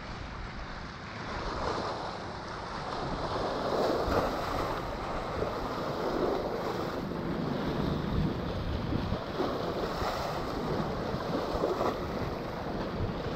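Seawater washing against the port's shore in slow swells, with wind blowing across the microphone.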